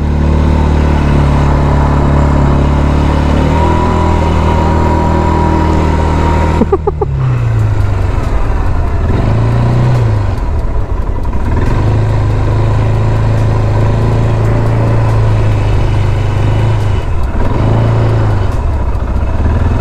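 A 176 cc ATV engine running while the machine is ridden, loud and steady. Its note drops about a third of the way in, then dips and recovers briefly a few more times.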